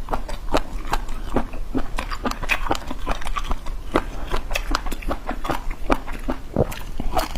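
Close-up chewing of spicy squid: irregular wet smacking and sticky clicks of mouth and lips, several a second.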